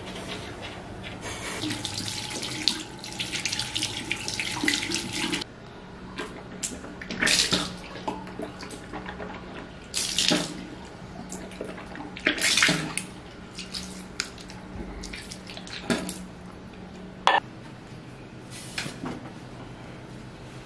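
Tap running into a bathroom sink for about four seconds, then a string of short splashes as the mouth is rinsed from a cup and the water spat into the basin after tooth-brushing. A faint steady hum runs underneath.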